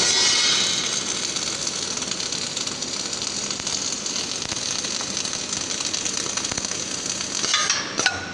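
Arc of an automatic MAG tube-to-tubesheet welding machine, crackling and hissing steadily as it welds. It cuts out near the end.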